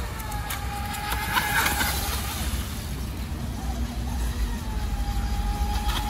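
Radio-controlled speedboat's motor whining at a steady high pitch as the boat runs across the pond. The whine is heard for the first couple of seconds, fades, then returns about four seconds in. A steady low rumble lies underneath.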